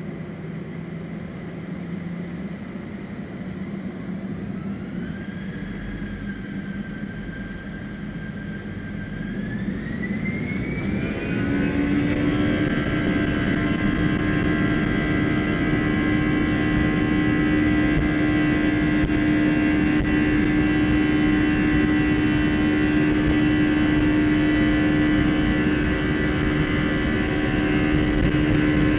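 CFM56-5A turbofan engines of an Airbus A320 spooling up for takeoff, heard from inside the cabin: a whine rises in pitch in two steps, then the engines settle at takeoff power into a louder, steady buzz made of many held tones.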